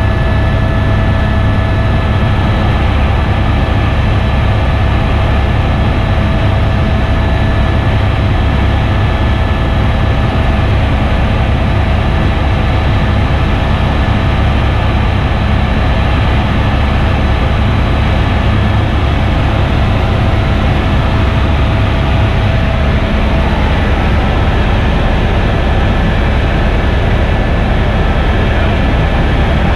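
Helicopter in flight, heard from on board: a loud, steady drone of rotor and engine with a thin steady whine above it, which shifts slightly in pitch about 23 seconds in.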